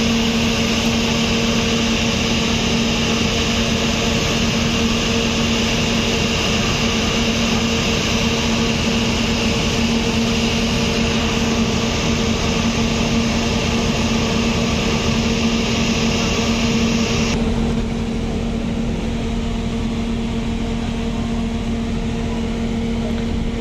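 A generator engine running steadily: a constant drone with a steady hum in it. About seventeen seconds in, the higher hiss drops away and the drone becomes slightly quieter.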